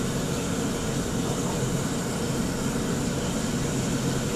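Restaurant kitchen's gas wok burners and overhead extractor hood running with a steady, even rushing noise and a low hum.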